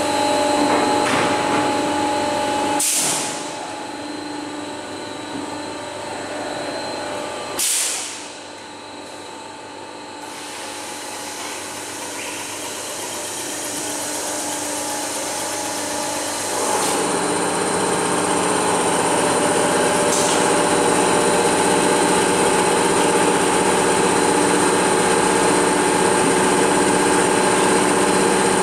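Machinery of a honeycomb-panel PUR laminating line running: a steady hum with several whining tones. Short hisses come at about three and eight seconds, each followed by a sudden drop in level, and from about seventeen seconds the machine noise turns louder and steady.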